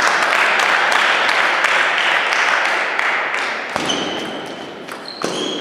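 Table tennis rally in a sports hall: the ball clicks sharply off the bats and table while the players' shoes squeak briefly on the hall floor. For the first few seconds these sounds sit under a loud steady rushing noise, which stops about two-thirds of the way through.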